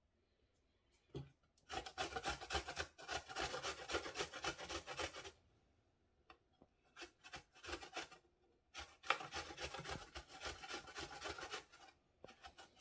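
Fresh ginger root rubbed on a stainless steel box grater: quick, rasping strokes in two long runs, about two seconds in and again from about nine seconds, with a few light taps in the pause between.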